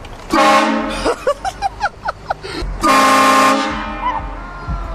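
Vehicle-mounted train horn blown in two loud blasts, each a steady chord of several tones lasting about a second, the second starting about two and a half seconds after the first.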